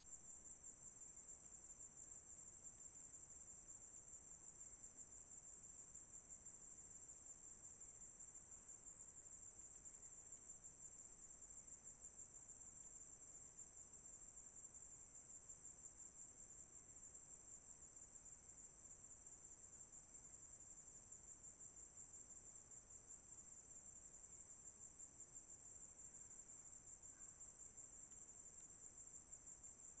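Faint, steady, high-pitched insect trill, cricket-like and unbroken throughout.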